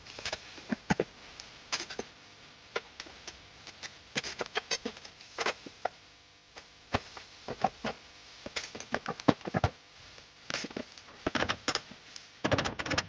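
Irregular sharp clicks and clanks of hand tools on metal parts as a power supply unit is dismantled, with a low hum coming in near the end.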